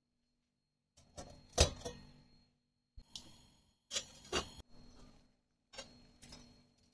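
Stainless steel cookware being handled: a folding steamer basket, steel pot and lid clinking and clanking, about half a dozen sharp metal knocks with short ringing, the loudest about one and a half seconds in.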